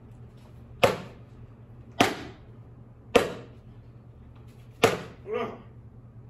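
Four sharp knocks, the first three about a second apart and the fourth a little later, each with a short ringing tail. A softer, pitched sound follows right after the last one.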